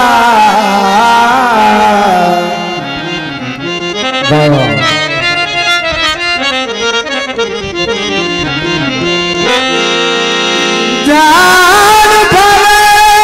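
Live traditional Punjabi music led by a harmonium. Long, wavering held melody lines open it; a quieter stretch of quick short notes with a few drum strokes follows, and the long held melody comes back loudly about eleven seconds in.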